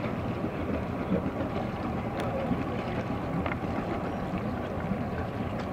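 Steady wind buffeting the microphone outdoors, a dense rumbling noise with no clear engine note, with a few faint ticks.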